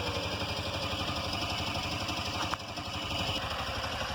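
Bajaj Qute's small single-cylinder engine idling with a steady, rapid low pulse. There is a short click about two and a half seconds in.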